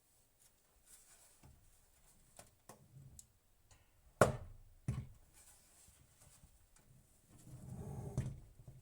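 Knocks and clicks of objects being handled: scattered light taps, two sharper knocks about four and five seconds in, then about a second of low scraping near the end.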